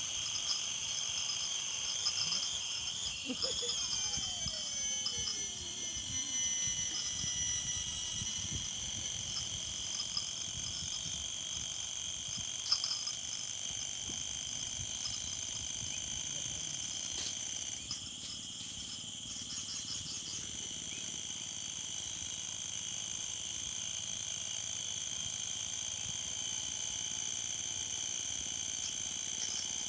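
Insect chorus trilling steadily at several high pitches. A few seconds in, a slow falling whistle-like glide sweeps down over about four seconds.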